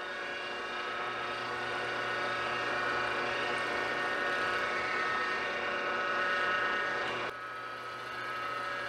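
Drill press running steadily, its bit cutting into a stainless steel washer. The sound drops suddenly about seven seconds in, and the press runs on more quietly.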